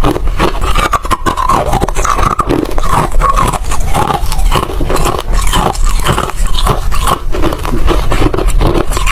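Ice being crunched and chewed up close, a dense, irregular run of crisp crunches.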